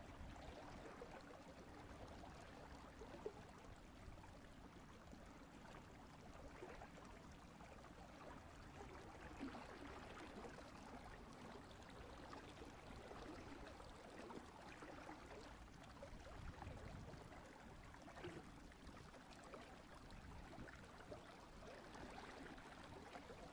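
Faint, steady running water of a stream, close to silence.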